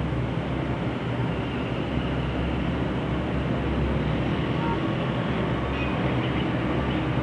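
Steady road traffic: the continuous low rumble of many car, bus and motorbike engines and tyres moving through a busy city roundabout.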